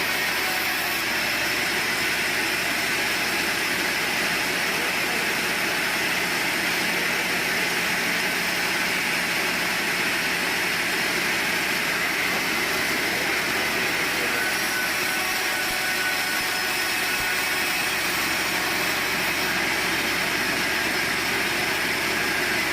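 Sawmill machinery running with a steady, unbroken whirring noise.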